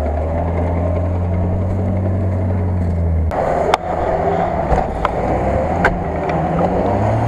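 Off-road 4x4's engine running under load as it crawls through forest mud, a steady low drone for about three seconds. Then the sound turns rougher, with several sharp cracks like twigs snapping under the tyres.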